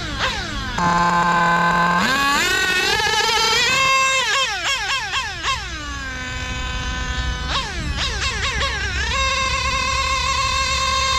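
Novarossi Mito .21 nitro two-stroke engine of a 1/8 GT RC car, screaming as it is driven round a track. Its pitch drops away sharply each time the throttle is released, wobbles up and down through quick throttle blips in the middle, then rises and holds a steady high whine near the end. The engine is on its first run and its carburettor is not yet tuned for idle and low-end response.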